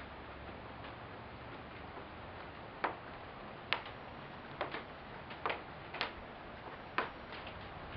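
Scattered raindrops ticking on a hard surface close by, about eight sharp irregular ticks in the second half, over a steady hiss.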